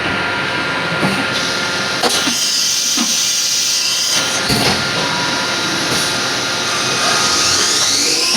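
Fadal VMC15 CNC vertical machining center running, a steady motor hum with light knocks about once a second. Near the end a whine rises in pitch as the spindle speeds up.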